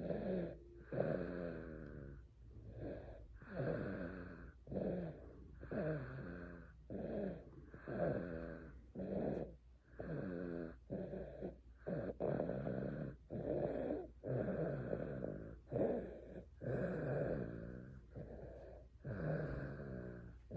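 A baby snoring in its sleep: short, pitched snoring breaths in a steady rhythm, about one a second.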